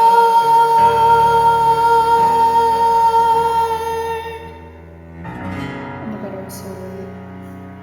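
Woman singing one long held note over a backing track, ending about four seconds in; then a final chord from the accompaniment rings out and fades away.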